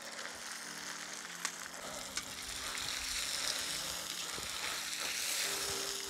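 Duck pieces and sliced onions sizzling in hot oil in a cast-iron kazan as they are stirred with a metal skimmer. The sizzle grows louder in the second half, and there are a couple of sharp clicks in the first half.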